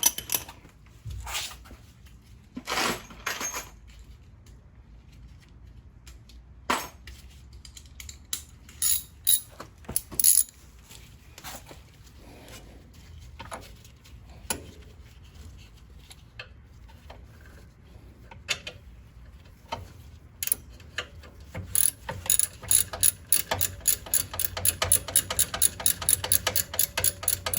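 Scattered clicks and clinks of hand tools being handled and fitted, then, from about 22 seconds in, a fast even run of ratchet clicks, several a second, as a small ratchet wrench is swung back and forth in a tight space to loosen the 7 mm Allen bolt of a rear brake caliper.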